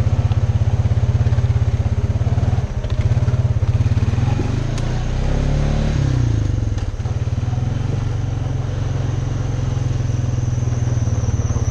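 Honda ATV's single-cylinder four-stroke engine running under way, a steady pulsing thump. The engine note dips and rises again about halfway through as the rider eases off and gets back on the throttle.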